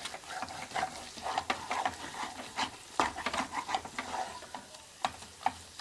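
Wooden spatula stirring, scraping and pressing thick moong dal paste around a wok, in irregular strokes over a light sizzle of ghee: the paste being roasted in ghee for halwa. The strokes thin out and get quieter near the end.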